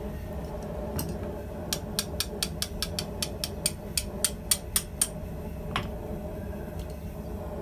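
Blacksmith's hand hammer striking a red-hot round steel bar held in tongs in an anvil bending tool: one blow, then a fast run of about fifteen light, sharp blows at about five a second, then a single duller knock, over a steady low rumble.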